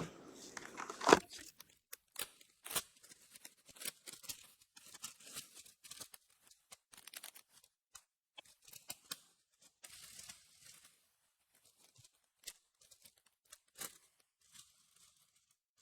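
Foil Yu-Gi-Oh! booster pack wrappers being torn open and crinkled, heard as faint scattered rustles and short sharp ticks, with one louder snap about a second in.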